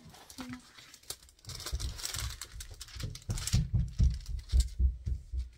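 Clear plastic protective film on a diamond painting canvas crinkling as it is peeled back and handled, with a run of dull thumps from about a second and a half in.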